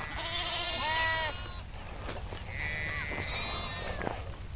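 Several sheep in a flock bleating, calls overlapping, one long wavering bleat right at the start and more calls a couple of seconds later.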